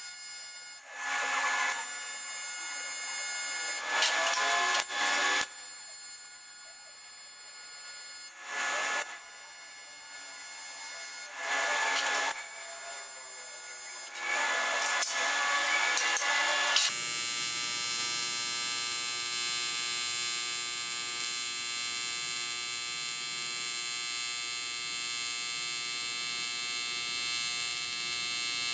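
TIG welding arc on aluminium tubing, a buzz typical of AC TIG. It comes in several short spurts of about a second each, then runs as one steady, unbroken buzz from a little past halfway as a longer bead is laid.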